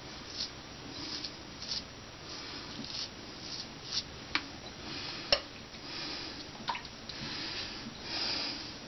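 Straight razor scraping lathered stubble on the neck in a series of short scratchy strokes, with a couple of sharp clicks about four and five seconds in.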